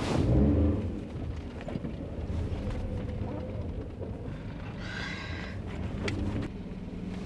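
A car running, a steady low rumble heard inside the cabin, with a louder sound right at the start and a brief higher-pitched sound about five seconds in.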